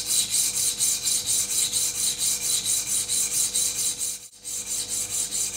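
Hair-clipper blade rubbed back and forth dry on a DuoSharp diamond sharpening plate, a steady rhythm of quick rasping strokes with a brief break about four seconds in. This is the coarse grinding stage, flattening the blade's cutting face to a fresh edge.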